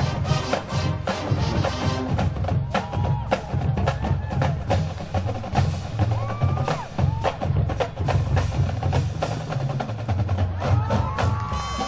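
Marching band music led by the drumline: a fast, dense run of snare, tenor and bass drum strokes, with pitched band parts growing stronger near the end.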